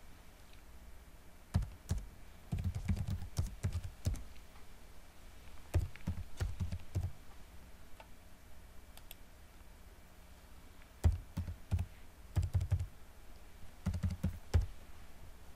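Typing on a computer keyboard: quick runs of keystrokes in several bursts, with a pause of a few seconds in the middle.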